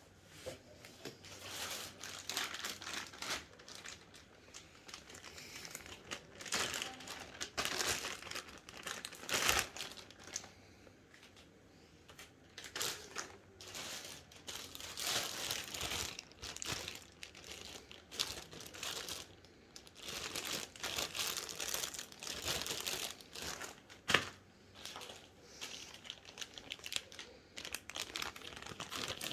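Plastic and foam packaging of a boxed computer monitor crinkling and rustling in irregular bursts as it is unpacked, with a couple of sharp knocks, one loud knock near the end.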